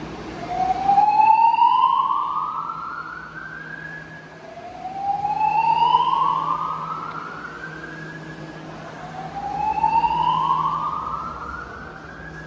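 Fire alarm voice-evacuation system sounding its slow-whoop evacuation tone: three slow rising sweeps, each about four seconds long, repeating evenly.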